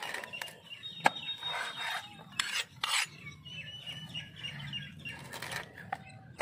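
Large curved knife chopping fish on a wooden cutting board: several sharp knocks of the blade striking the board, the loudest about a second in, with rasping scrapes of the blade between them.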